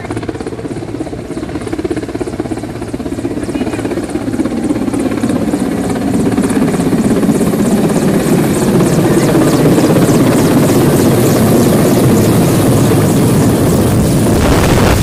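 Mil Mi-17 twin-turbine transport helicopter flying in low, its rotor beat and turbine noise growing steadily louder as it comes closer and descends overhead.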